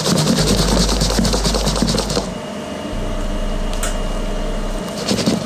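Fish sauce caramel glaze sizzling and crackling in a wok as fried chicken drumsticks are stirred through it; the rapid crackle eases off about two seconds in, leaving a quieter steady hum with a faint high whine from the cooktop, and a single tap near the middle.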